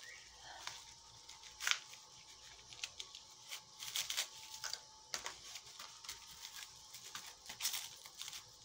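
A clear plastic bag crinkling and paper rustling as a small paper booklet is handled, in scattered short rustles and soft taps.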